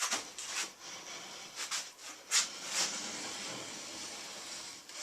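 Pencil scratching an arc on a wooden board while a steel square slides against two nails: a few short scrapes, then steady scratching from about halfway.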